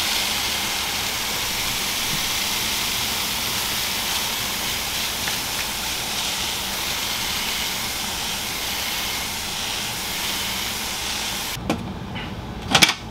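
Hand-held water mister spraying a fine mist into a planted terrarium: a steady hiss that stops shortly before the end, followed by a few sharp knocks.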